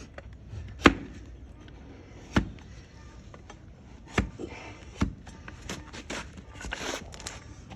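Hoof-trimming blade chopping into a donkey's hoof horn: four sharp strokes a second or two apart, then lighter clicks and a brief scraping near the end.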